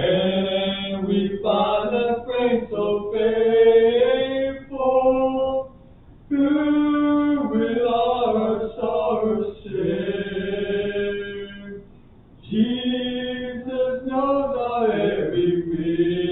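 Singing voices in long, held phrases sliding in pitch, three phrases of about five seconds each with short pauses between them.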